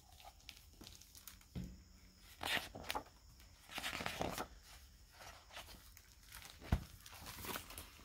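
Pages of a large hardcover picture book being opened and turned: several short bursts of paper rustling, with one sharp tap near the end.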